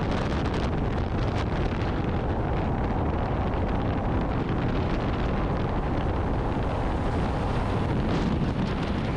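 Steady wind noise rushing over the microphone, with a few faint knocks.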